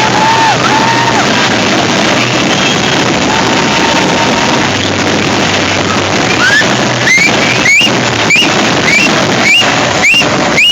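A song plays over a dense wash of crowd noise. In the second half comes a rapid volley of about eight whistling fireworks: each is a short rising whistle with a sharp crack, roughly one every half second.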